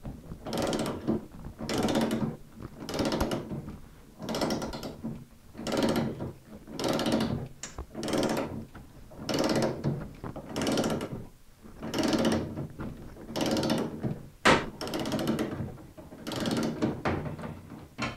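Ratchet wrench clicking in steady back-and-forth strokes, about one sweep a second, as it turns the draw bolt of a knockout punch and pulls the cutter through the steel wall of an electrical enclosure. One sharper, louder crack comes near the end.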